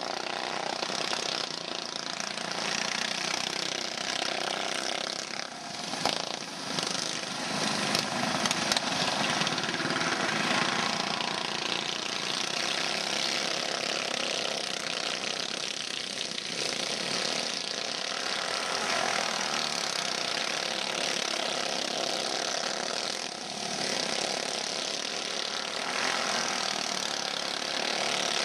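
Several dirt-track racing go-karts running at speed together, their small engines making a dense, continuous buzz that swells and dips slightly as karts pass. There are a few sharp clicks about six to nine seconds in.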